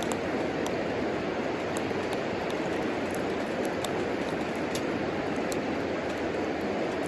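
Wood fire burning in a homemade wood stove: a steady rushing sound with scattered sharp crackles of burning wood.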